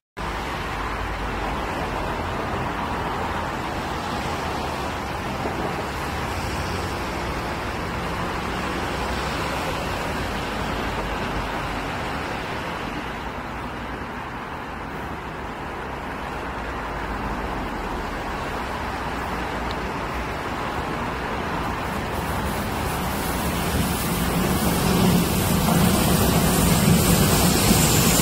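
Steady outdoor background noise, then a Seoul Subway Line 3 electric train growing louder over the last several seconds as it approaches, with a low rumble of wheels on the rails.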